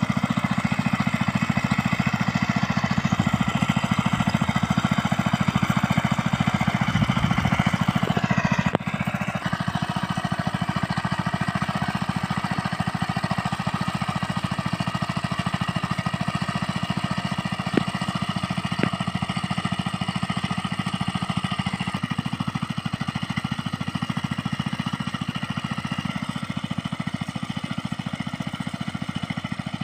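Small engine of a mini rice-paddy tiller running steadily. About nine seconds in its pitch drops and it runs on a little quieter, with two faint clicks later.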